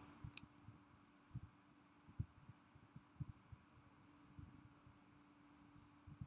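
Near silence: a few faint, scattered clicks over a faint steady hum.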